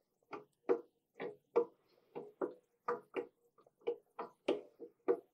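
Light, uneven clicks, often in pairs, as the bell housing of a brushless outrunner motor is turned slowly by hand on its shaft, which is chucked in a drill press.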